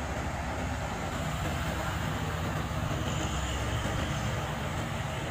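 Road traffic dominated by heavy truck diesel engines running steadily as vehicles pass, a continuous low engine hum with road noise.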